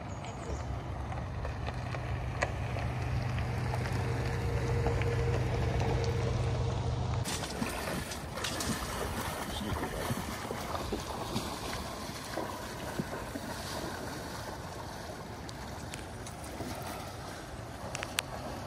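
A steady low rumble for about seven seconds, then a sudden change to the wash and splash of river water, as people wade through the current and water is poured out of a container into the river.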